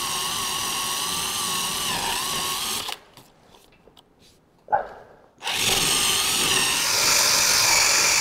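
Die grinder spinning a brass wire cup brush against the bolt heads on a truck cab, stripping paint: a steady whine. It stops about three seconds in, gives one brief burst near five seconds, then runs again from about five and a half seconds on.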